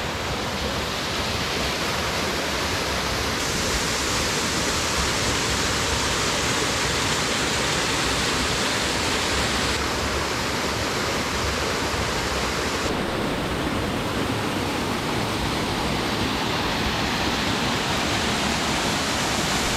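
Waterfall rushing, a loud, steady wash of falling water, its tone shifting slightly a few times.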